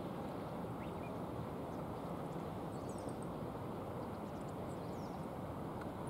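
Steady rush of shallow river water running over stones, with a few faint, high-pitched bird chirps in a short cluster about three seconds in.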